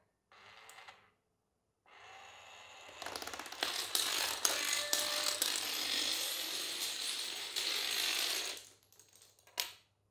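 A long chain of toy dominoes toppling in sequence: a dense rattling clatter of many small clicks that builds about two seconds in, stays loud for about five seconds, then stops suddenly. A single sharp click follows about a second before the end.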